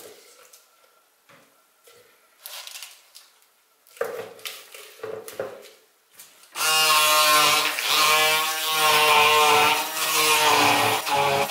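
Light rustling and handling as spinach leaves are pushed into a glass blender beaker, then about six and a half seconds in a hand-held stick blender switches on and runs loudly and steadily, puréeing spinach and pumpkin.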